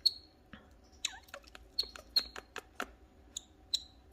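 Pet canary giving a quick run of short, sharp chirps, about a dozen, a couple of them with a quick falling note.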